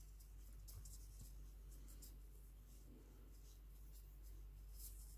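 Near silence, with faint scattered rustles and scratches of thread and a metal needle being worked through crocheted yarn while a knot is tied.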